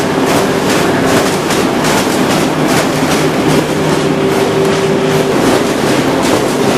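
Corrugated-board rotary die-cutting line running at speed and feeding cardboard sheets: a steady machine hum with a rapid, even clatter of about three strokes a second.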